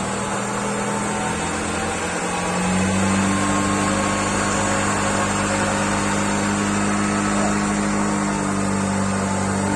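Honda Ciello car engine idling steadily while warming up; about three seconds in its idle steps up slightly higher and a little louder.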